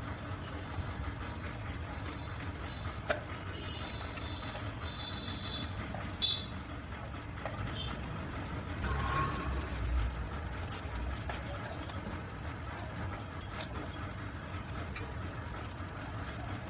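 Occasional sharp clicks and knocks of table-fan parts being handled and fitted back together during reassembly, over a steady low background noise.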